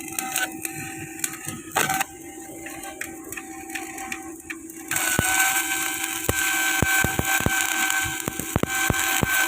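A few scattered clicks and taps over a steady hum, then about five seconds in an electric welding arc strikes and runs with a steady crackling sizzle.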